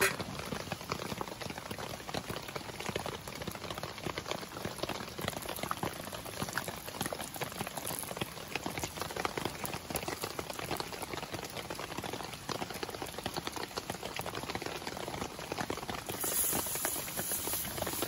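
Campfire cooking in the rain: a wood fire crackling under a grill, with a pan of butter sizzling and rain pattering. The hiss grows brighter about two seconds before the end.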